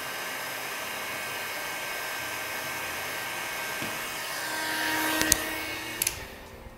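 Electric heat gun blowing hot air onto car window glass, a steady fan hiss that swells a little near the end; two clicks come just before it dies away.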